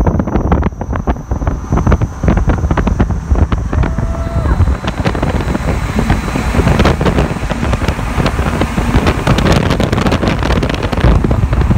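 Loud wind buffeting the microphone through an open window of a moving car, a dense low rumble with irregular crackles, over the vehicle's running noise.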